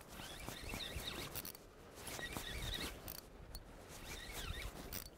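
Fishing reel being cranked in three short spells, a faint rapid clicking whir, as a hooked striped bass is reeled in.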